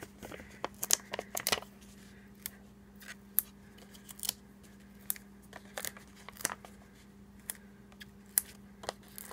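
Small foam adhesive dots being peeled off their paper backing sheet and pressed onto cardstock: scattered light clicks, ticks and paper crinkles at irregular intervals, over a faint steady hum.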